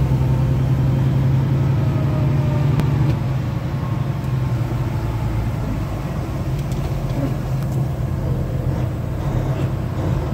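Semi-truck's diesel engine running steadily under way, a low drone heard from inside the cab along with road noise; it eases off a little about three seconds in.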